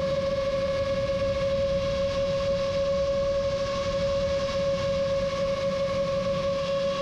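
Rajawali Fold 7 FPV quadcopter's motors and propellers running at a steady cruise throttle in flight: one constant whining tone with overtones over a rush of wind noise.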